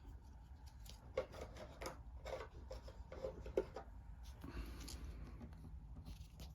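Board-game components being handled by hand: irregular rustling, rubbing and light taps of cardboard tokens and packaging.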